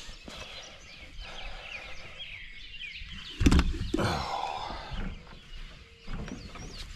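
Songbirds chirping in the dawn chorus, many short quick calls overlapping. About three and a half seconds in there is a loud thump and rustle from handling.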